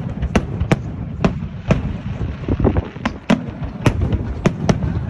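Firework display: aerial shells bursting in quick, irregular succession, about a dozen sharp bangs over a continuous low rumble.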